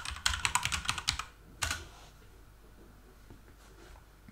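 Typing on a computer keyboard: a quick run of keystrokes for about a second, then one more key press shortly after.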